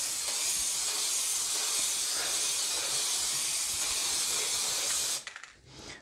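Aerosol can of spray-on glue spraying in a steady hiss that cuts off suddenly about five seconds in.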